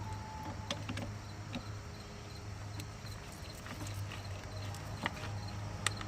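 Scattered light metallic clicks and taps of a wrench working a car battery terminal's nut, over a steady low hum.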